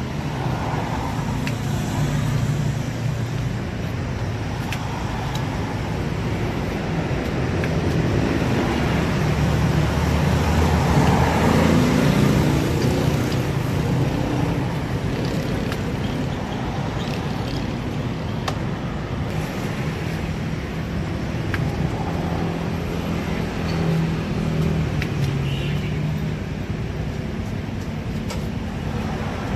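Steady road traffic noise, a continuous low rumble of passing vehicles, with a few faint clicks of a knife on fruit and a cutting board.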